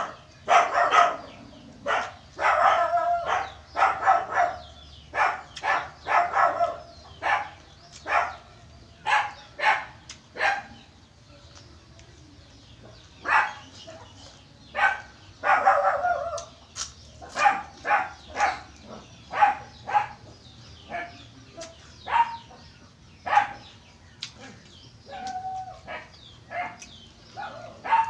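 Crisp crunching of fried pork rinds and raw cabbage being bitten and chewed, many sharp crunches at irregular intervals. A dog barks in short bursts among them, most in the first six seconds and again around the middle.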